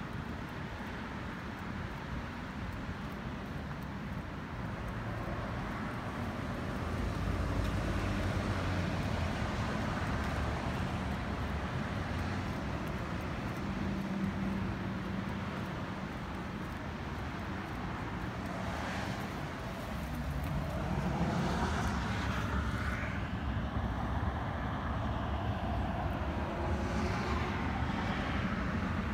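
Steady outdoor road-traffic noise from passing cars, swelling louder twice as vehicles go by.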